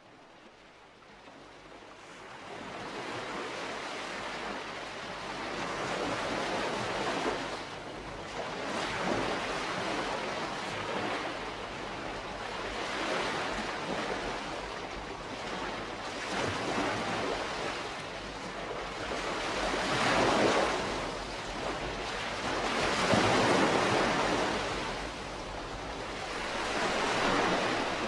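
Calm sea washing gently against the shore, the water swelling and easing back every three to four seconds. It rises from faint over the first few seconds.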